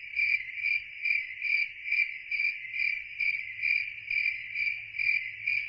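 Cricket chirping in a steady, even pulse, about four chirps a second.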